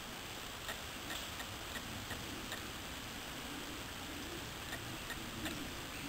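Faint, irregular clicks, two or three a second, over a steady background hiss.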